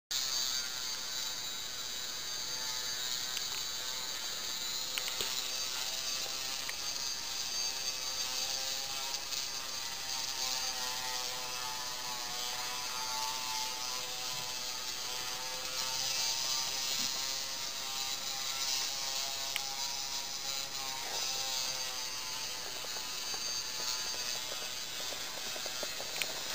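LEGO 9V micromotor running steadily with a whirring whine, turning the plastic gears and crank legs of a small walking model, with a few faint clicks.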